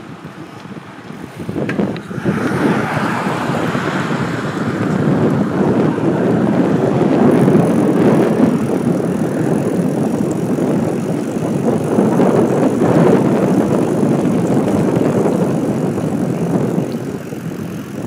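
Wind rushing over the microphone of a camera mounted on a moving bicycle, mixed with the rush of its tyres on wet asphalt; it gets much louder about two seconds in and then holds steady.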